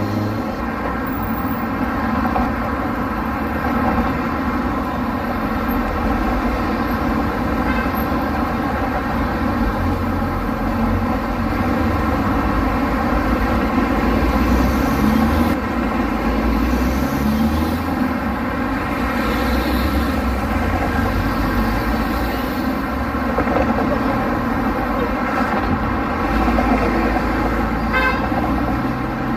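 Street traffic: cars and trucks running steadily, with car horns sounding.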